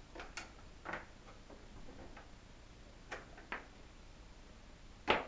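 A handful of scattered clicks and knocks as cables are unplugged from the back panel of a Pioneer DDJ-S1 DJ controller, the loudest a sharp knock near the end.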